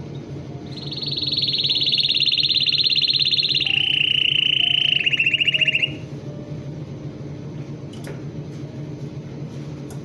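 Domestic canary singing one long trill of rapidly repeated notes, starting about a second in, dropping to a lower pitch partway through, and breaking off about six seconds in. A steady low hum runs underneath.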